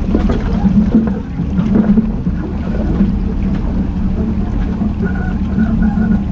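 Jeep Cherokee Trailhawk's engine running at low revs as it crawls down a rutted rocky trail, a steady low hum, with wind rumbling on the microphone.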